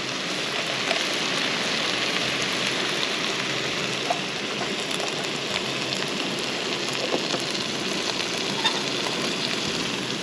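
Sliced mushrooms and onion sizzling in a pan on a portable gas cartridge stove: a steady hiss with scattered small pops.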